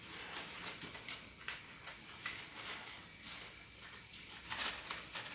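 Colour paper crackling and rustling as hands fold and press its glued edges down: a run of small irregular crackles and clicks, loudest about four and a half seconds in.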